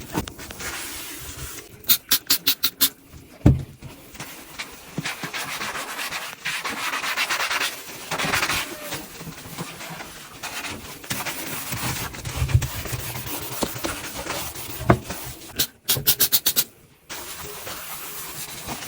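Scrubbing and rubbing while cleaning a washing machine, broken by two quick runs of five or six sharp clicks, about two seconds in and near the end, and a couple of knocks.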